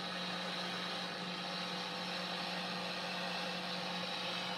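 Steady FM receiver hiss from the HP 8922 radio test set's built-in speaker, its FM demodulator unmuted with no station coming through, over a steady low hum.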